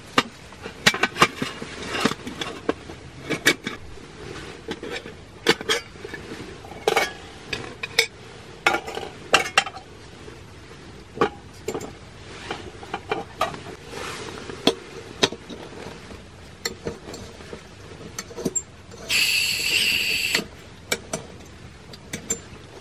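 Fire-Maple nesting camp cookware being unpacked: pots, pan and bowl clinking and knocking against each other and the table in many short separate clinks. About nineteen seconds in comes one harsher sound lasting just over a second.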